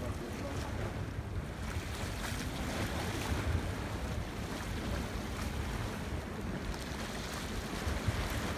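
Wind buffeting the microphone, heard as a steady low rumble over the wash of calm sea water along a rocky shore.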